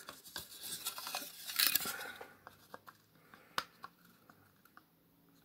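Small hinged plastic toy shield pieces handled and pressed together: scraping and rustling, loudest about a second and a half in, with scattered light clicks and one sharper click about three and a half seconds in.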